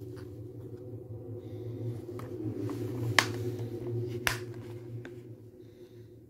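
Plastic Blu-ray case being handled and snapped shut: two sharp clicks about a second apart near the middle, with lighter handling ticks, over a steady low hum that fades toward the end.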